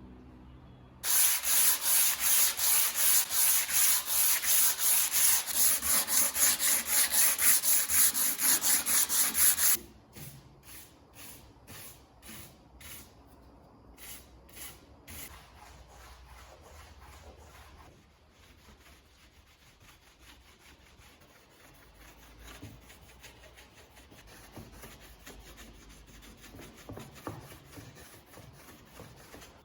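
Hand sanding, with fast back-and-forth abrasive strokes at about four a second for some nine seconds. The strokes then turn slower and quieter, and fade to faint rubbing.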